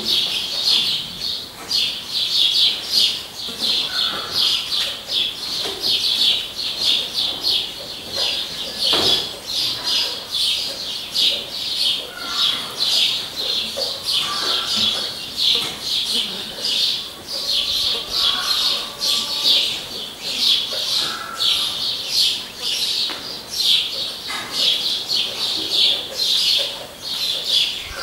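Small birds chirping in a continuous, dense, high-pitched chorus of rapid chirps.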